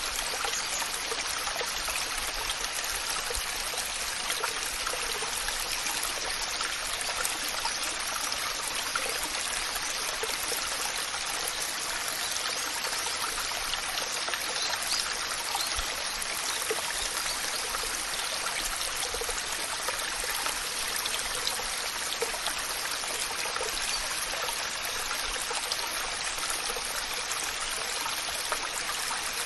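Waterfall: water pouring and splashing without a break, a dense even hiss flecked with small splashes.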